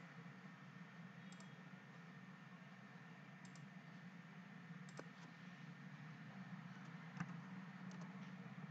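Near silence with a low steady hum and a few faint, single computer clicks, a second or two apart, from a mouse and keyboard.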